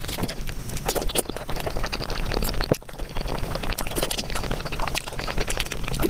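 Close-miked eating sounds played back at about five times normal speed: a dense run of rapid wet clicks and squelches from biting and chewing syrup-soaked gulab jamun. They break off briefly a little before three seconds in.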